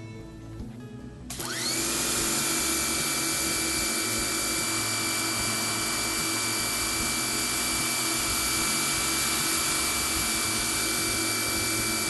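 Pressure washer spraying through the green 25-degree nozzle. About a second in, its motor whine rises quickly as it starts. It then runs steadily with a loud hiss of spray and cuts off suddenly near the end.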